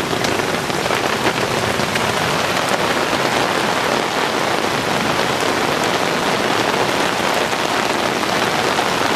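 Rain falling steadily in a dense, even hiss, with scattered drops ticking close by.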